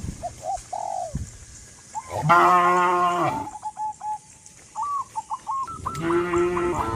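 Cows mooing: one long low moo about two seconds in and another near the end. Between them comes a quick run of short, higher honks from geese.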